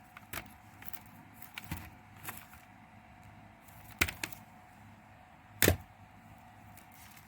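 Plastic CD cases being handled and set down: scattered light clicks and clacks, with two louder knocks about four seconds in and again about a second and a half later.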